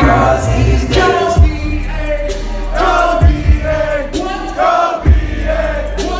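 Live hip-hop song played loud through a venue PA, heard from within the audience: a deep bass beat with hard kick hits and vocals, with the crowd singing along.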